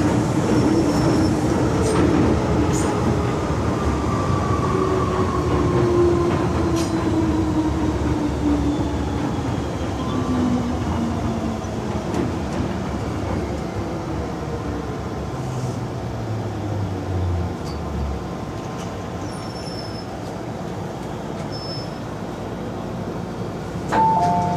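MTR M-Train electric multiple unit running and slowing down: the traction motors' whine falls steadily in pitch over the rumble of wheels on rail, and the lowest tone dies away about three quarters of the way through. A two-note chime starts just before the end.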